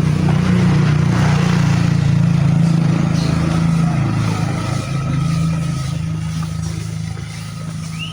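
A motor vehicle's engine running steadily close by, then fading over the last couple of seconds as it moves off.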